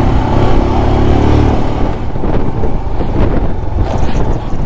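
Motorcycle engine running steadily as the bike rides along a gravel track, heard from the rider's position. After about two seconds the even engine hum gives way to a rougher rumble with a few knocks and rattles as the bike rides over stones.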